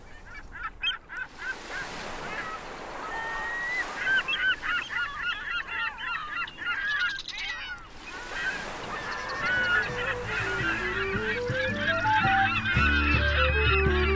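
Many birds calling rapidly over one another in short, chattering calls. About nine or ten seconds in, background music with a stepped melody comes in, joined near the end by a deep bass note.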